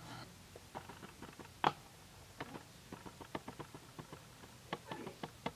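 Handling noise from fingers on a Canon 700D DSLR and its kit lens, picked up by the camera's own built-in microphone: one sharper click about one and a half seconds in, then a run of small, irregular clicks and taps.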